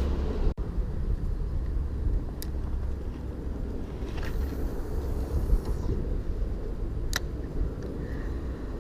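Road traffic on the bridge overhead: a steady low rumble, with a couple of sharp clicks.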